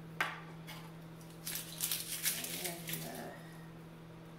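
A sharp knife tap about a quarter second in, then light clicks and papery crackling from an onion being trimmed and its skin peeled with a knife, over a steady low hum.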